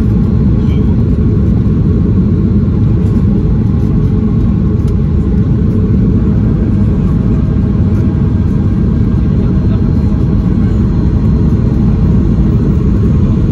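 Steady, even low rumble inside the cabin of a Boeing 737-800 descending on approach to land: its CFM56 jet engines and the rush of air along the fuselage heard from a window seat over the wing.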